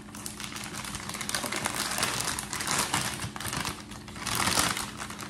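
Plastic piping bag crinkling as it is folded and handled, a run of small crackles with brief lulls about two and four seconds in.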